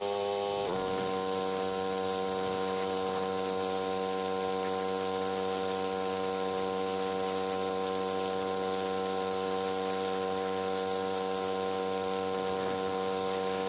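A steady, even machine hum, most likely the pressure washer's 420cc CRX single-cylinder engine running, heard muffled and much quieter than just before. Its pitch settles slightly about a second in and then holds.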